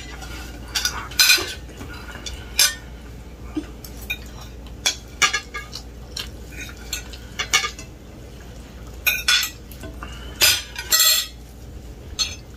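Spoons and forks clinking and scraping against plates while food is served and eaten: a dozen or so short, sharp clinks at irregular intervals.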